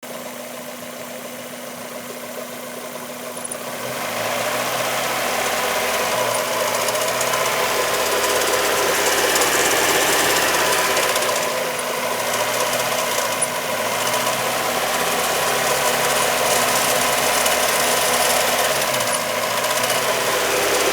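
Mazda Miata's four-cylinder engine running with an unidentified noise that the owner calls noisy and suspects comes from the exhaust. It gets louder about four seconds in.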